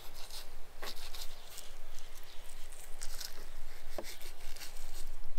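Kitchen knife cutting into a raw rabbit carcass on a wooden board: irregular soft clicks and scrapes, the sharpest about a second in and again near the four-second mark.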